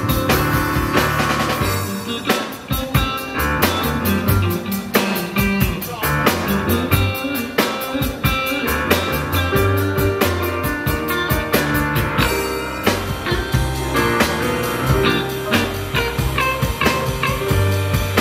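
Live blues band playing: upright bass, drum kit, keyboard and electric guitar, with a regular drum beat and a strong bass line.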